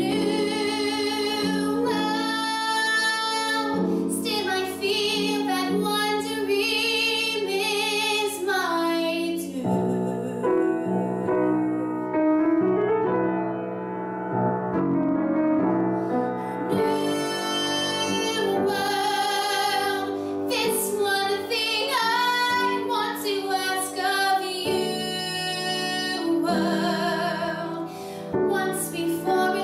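A solo female voice singing a musical-theatre ballad with wide vibrato over piano accompaniment. About ten seconds in she stops for some seven seconds while the accompaniment plays on alone, then sings again to the end.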